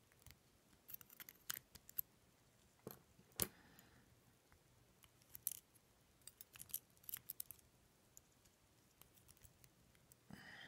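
Small metallic clicks and ticks of steel tweezers working the side pins of an ASSA Twin 6000 lock cylinder, irregular and in little clusters, with a brief scrape near the end.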